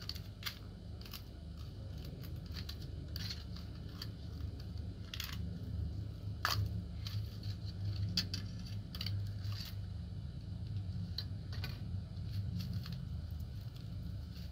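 Crinkly plastic and foil wrapping being pulled and torn off a rusty revolver by gloved hands: scattered crackles and rustles, over a steady low hum.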